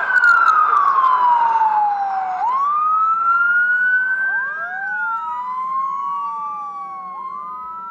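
Fire engine siren wailing, its pitch rising and falling slowly over a few seconds at a time. From about halfway a second wail overlaps it, and the sound fades toward the end.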